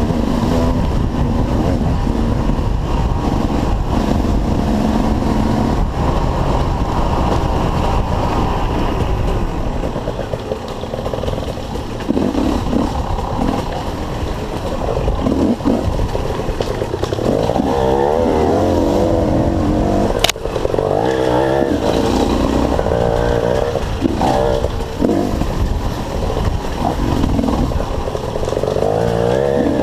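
Dirt bike engines running and revving up and down, their pitch rising and falling repeatedly. A single sharp crack about twenty seconds in.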